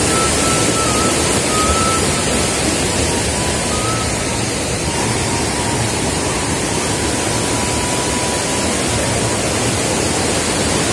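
Steady rushing of a large, fast-flowing river, an even wash of water noise.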